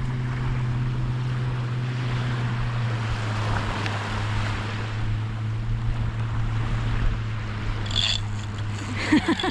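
Surf and wind on the microphone under a steady low drone. Near the end, a brief high-pitched burst of fishing-reel drag and a few clicks.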